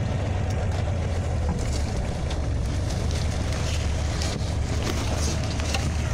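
Scania OmniLink CL94UB city bus under way, heard from inside the passenger cabin: a steady low drone from the rear-mounted engine, with tyre hiss on the wet road and a few faint clicks.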